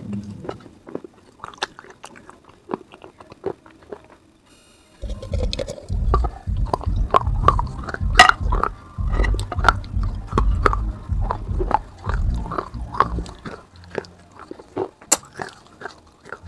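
Terracotta clay pot (gullak) being bitten and chewed close to the microphone: scattered sharp crunches at first, then from about five seconds in a long stretch of dense crunching and heavy close chewing, thinning to a few crunches near the end.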